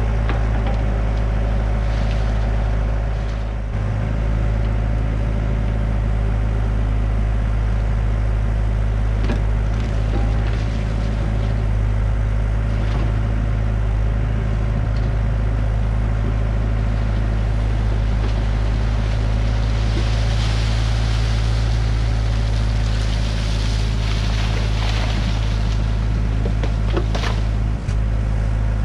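Hyundai excavator's diesel engine running steadily under digging load, with a few sharp knocks of the bucket against soil and stone.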